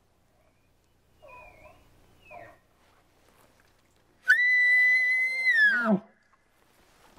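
Elk bugle call blown through a bugle tube, imitating a bull elk's bugle: one loud, high whistle held about a second and a half, then dropping steeply to a low grunt. A fainter, short call comes about a second in.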